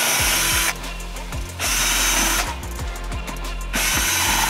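Cordless drill-driver running in three short bursts of under a second each, backing out the screws that hold the engine to an aluminium chassis plate.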